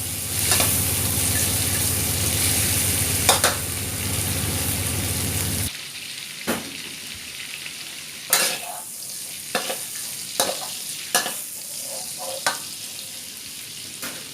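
Seafood stir-fry sizzling in a pan and being stirred, with sharp clinks of the spatula against the pan. About six seconds in, the loud sizzle drops off suddenly, leaving a quieter sizzle broken by scattered spatula scrapes and clinks.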